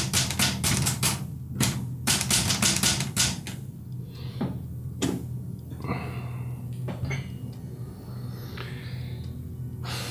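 Typewriter keys clattering in fast runs of strokes, with a short pause, stopping about three and a half seconds in. Then come a few scattered knocks, over a low steady music drone.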